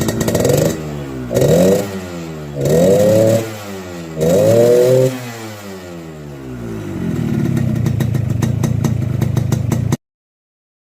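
Yamaha RX-King's 135 cc single-cylinder two-stroke engine on its stock exhaust, idling with its raspy 'ngorok' note. It is blipped four times, the revs rising and falling each time, then settles back to idle. The sound cuts off suddenly near the end.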